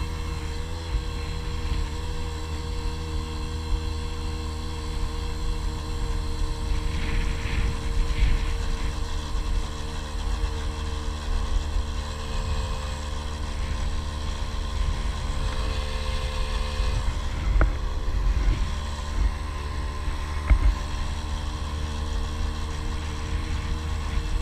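Small motorcycle engine running steadily at cruising speed, with heavy wind rumble buffeting the helmet-mounted microphone and a couple of brief knocks from road bumps late on.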